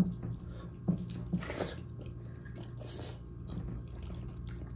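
Eating by hand at a meal: short, soft, irregular sounds of rice and curry being mixed and chewed, every second or so, over a steady low hum.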